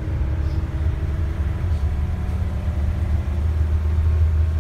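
Steady low engine and road rumble heard from inside a moving vehicle's cabin.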